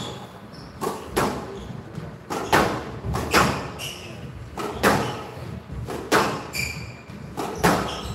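Squash rally: a squash ball cracking off rackets and the court walls about once a second, with shoes squeaking briefly on the court floor between shots.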